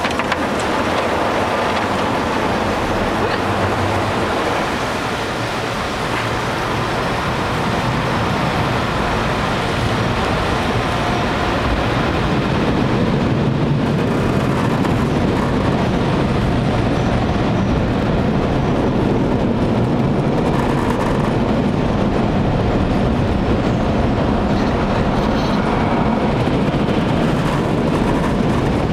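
Automatic car wash machinery running, heard from inside the car's cabin: a loud, steady rush of noise that gets somewhat louder and deeper about halfway through.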